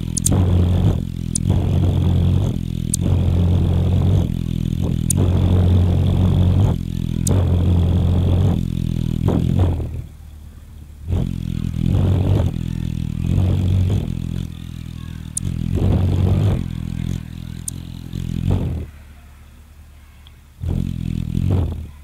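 Hummingbird wing hum: a low, loud buzz in repeated bursts of about a second with short gaps, while the bird hovers at the feeder. After about ten seconds, once it perches, the hum becomes weaker and more broken. A few faint, sharp high ticks are scattered through it.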